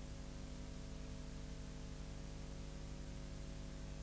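Steady low electrical hum with a faint hiss. No speech or music.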